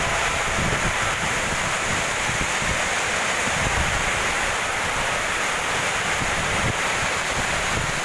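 Strong storm wind rushing steadily through banana plants, with irregular low buffeting of the wind on the microphone.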